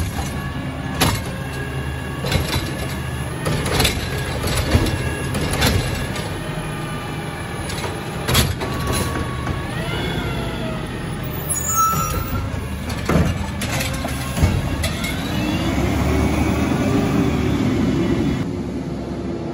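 Peterbilt 320 side-load garbage truck running, with its Bridgeport Ranger automated arm, which is pretty rough, grabbing, lifting and dumping a wheeled cart; there are repeated sharp knocks and clanks as the cart and arm bang. About three-quarters of the way through, the engine swells and rises in pitch as the truck moves off.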